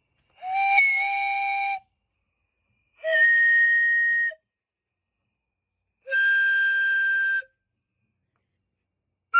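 Five-chime train whistle blown on compressed air: three separate blasts of about a second and a half each, each at a different pitch, with a fourth blast starting at the very end.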